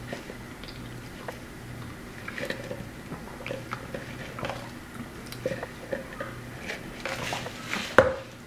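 Sipping a fountain drink through a straw from a paper cup, with small wet mouth and chewing sounds and light clicks. One sharper knock near the end.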